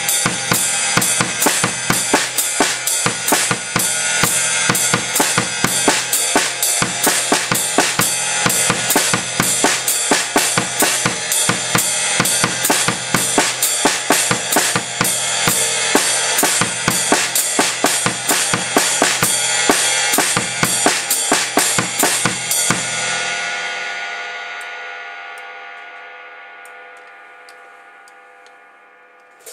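Drum kit playing a steady time pattern with bass drum and snare figures and the hi-hat worked by foot. About 23 seconds in the playing stops and a cymbal rings on, fading away slowly.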